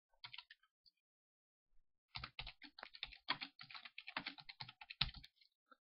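Typing on a computer keyboard: a few keystrokes right at the start, a pause of over a second, then a quick run of keystrokes lasting about three seconds.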